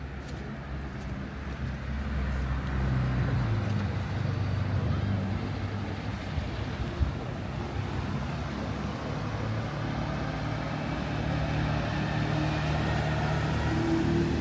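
A motor vehicle engine running at low revs close by, a steady low hum that grows louder over the first few seconds and holds, with street noise around it.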